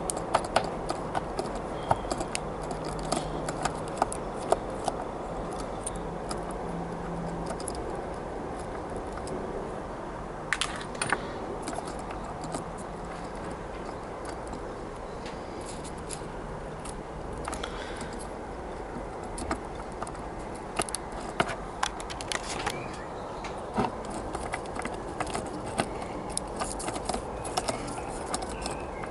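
Small irregular clicks and taps from a jeweller's screwdriver and fingers working at the plastic tender chassis of a Hornby J36 model locomotive, undoing screws and handling the chassis, over a faint steady background noise.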